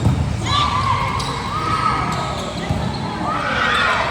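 Sounds of indoor volleyball play echoing in a gym: a few sharp impacts and several drawn-out gliding squeaks or calls, over a steady low rumble of the hall.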